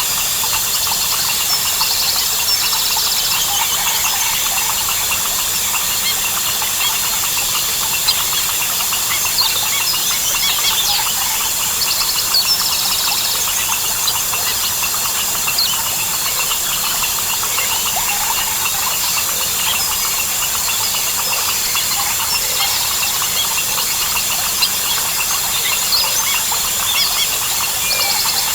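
Tropical rainforest chorus: a steady, dense, high-pitched drone of crickets and other insects, with many birds chirping and calling over it and frogs among them. Short rapid trills break in now and then, about every ten seconds.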